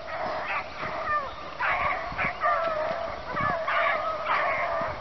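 A pack of beagles baying on a rabbit's track, several hounds' voices overlapping as they run it.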